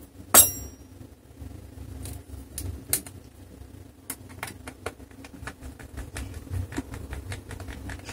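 Small screwdriver driving a screw back into the bottom panel of an HP Pavilion 15 laptop: a sharp click less than a second in, then a string of light, irregular clicks and ticks from the driver tip and screw.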